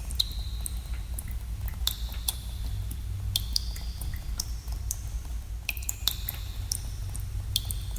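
Water drops falling into a pool in a cave, each a sharp plink with a brief high ringing tone, coming at irregular intervals. A steady low rumble runs beneath the drips.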